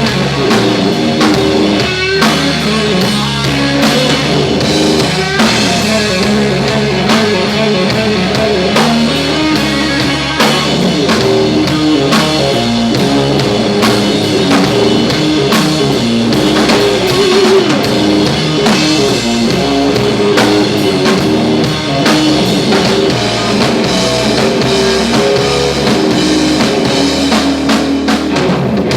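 Live blues rock band playing an instrumental passage: electric guitar lead over bass and a drum kit, with no singing.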